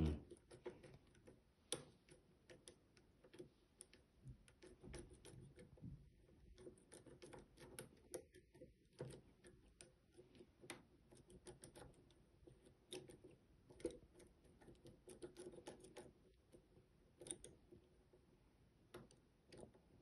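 Faint, irregular small clicks and ticks from a Rotorpick lock-picking tool being turned in a Cisa RS3 S lock cylinder under heavy tension, as its side pins are being set.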